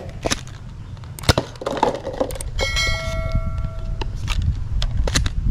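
Nerf Mega Talon foam-dart blaster being handled and fired: a few clicks, then the sharp snap of the shot about a second in. A little later comes a bright ringing tone lasting about a second and a half, over a steady low rumble.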